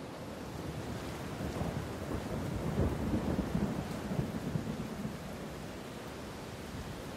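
Heavy storm sound: steady rain with low thunder rolling through, swelling to its loudest about three seconds in. It starts abruptly.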